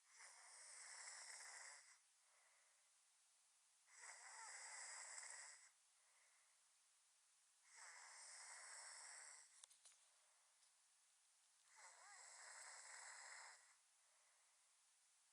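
A sleeper snoring: four drawn-out snores about four seconds apart, each lasting around two seconds, with quiet in between.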